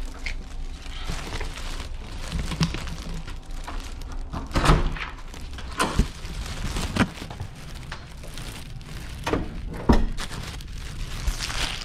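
Plastic shopping bags rustling and crinkling as they are carried, with footsteps and several sharp knocks, the loudest about halfway through and near the end.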